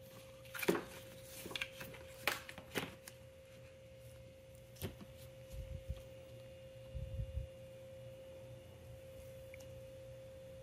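Plastic seat trim being handled and pressed into place along a golf cart seat's edge: a few sharp clicks and taps in the first three seconds, another about five seconds in, then a couple of low bumps. A faint steady tone hums throughout.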